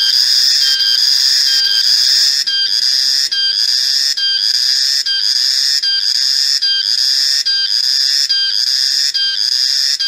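Cicada singing: a loud, shrill buzzing call that pulses about every three-quarters of a second. From about two and a half seconds in, each pulse ends in a brief rattle of clicks.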